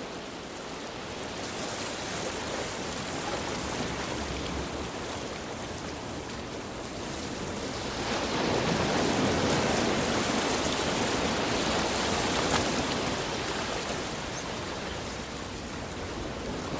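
Ocean surf: a steady wash of breaking waves that swells louder about halfway through, then eases off again.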